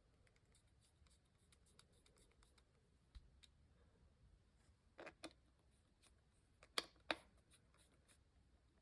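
Keystrokes on a Zoom65 v3 custom mechanical keyboard with lubed KTT Hyacinth linear switches, a POM plate and PBT keycaps: many faint key clicks, with two louder pairs of strokes about five and seven seconds in.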